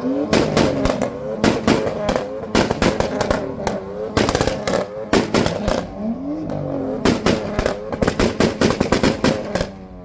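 BMW M4's twin-turbo straight-six being blipped repeatedly, each rev followed by a burst of rapid exhaust pops and crackles. The popping stops just before the end, leaving the engine running more quietly.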